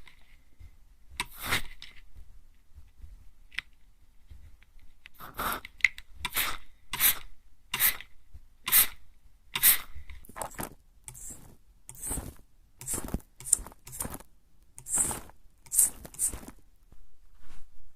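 Hand-pump spray bottle misting onto the ear in short hissing puffs, a single spray about a second and a half in, then puffs a little under a second apart from about five seconds in.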